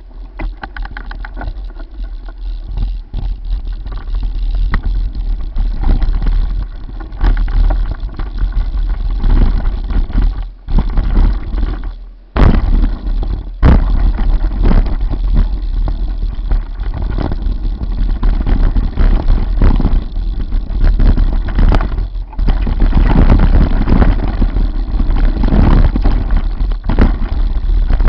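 Mountain bike descending a rough dirt trail at speed: wind buffeting the microphone, tyres rumbling and the bike rattling over roots and bumps. Two brief lulls about ten and twelve seconds in are followed by a sharp knock, then the rumble and clatter carry on.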